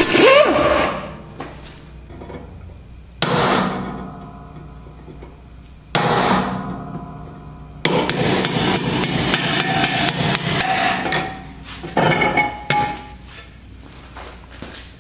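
Impact wrench hammering in five bursts on the rusted bolts holding together the front spindle assembly of a 1968 AMC Javelin, the longest burst about three and a half seconds starting about eight seconds in. The bolts, their ends peened over, are hard to get out.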